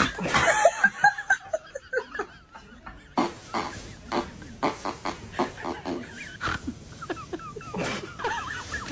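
People laughing in short, broken bursts, with scattered short sharp sounds in between.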